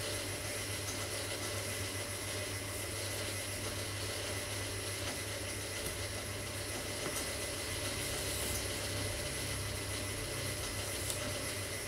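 Steady low hum with an even hiss, broken only by a few faint ticks: room tone.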